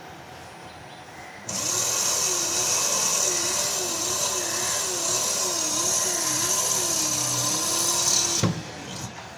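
A hand-held electric power tool runs with a loud hiss and a hum that wavers up and down in pitch. It starts suddenly about a second and a half in and cuts off with a click after about seven seconds.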